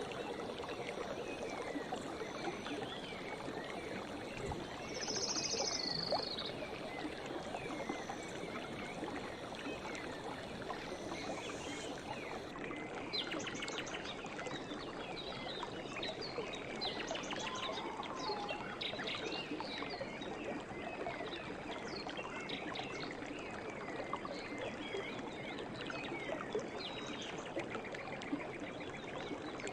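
Forest ambience: a steady rush of flowing stream water, with many small birds chirping throughout and a brief higher call about five seconds in.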